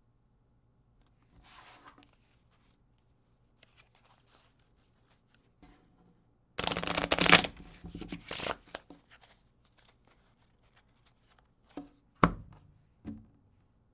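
A deck of playing cards being shuffled: faint rustles at first, then a dense, quick ripple of cards about halfway through with a shorter second one just after, followed by a few sharp knocks near the end.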